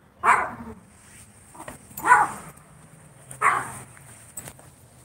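A dog barking: three loud barks about a second and a half apart.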